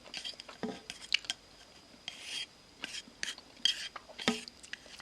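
Close-miked eating of spicy ramyun noodle soup: many sharp clicks of utensils against the bowl, mixed with a few short bursts of eating noise, the clearest about two seconds in and near the three-and-a-half-second mark.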